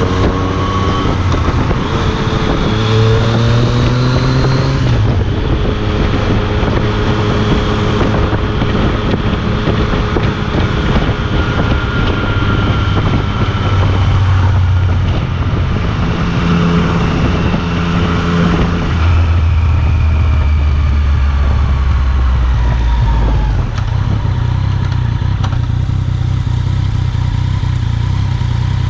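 Yamaha FZ-09's three-cylinder engine running through an Akrapovic carbon-fibre exhaust while the bike is ridden through turns. The engine note rises and falls, climbing around the second to fourth seconds and dropping in steps near the end.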